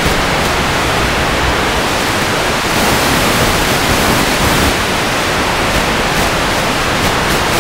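Loud, steady static hiss from an analog FPV video receiver's audio channel. It turns brighter and harsher from about three to five seconds in, as the video signal breaks up.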